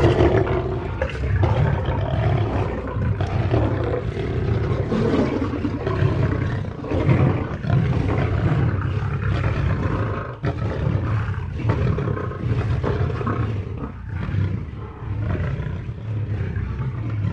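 Lions fighting: an unbroken tangle of snarls, growls and roars that swells and dips without a pause.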